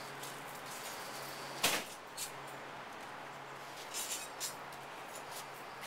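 A single sharp knock about a second and a half in, then a few lighter clicks and taps, over a steady low hum inside a delivery truck's cargo box.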